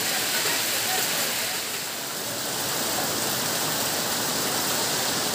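Heavy rain falling steadily on trees and a roof, running off the eave in streams.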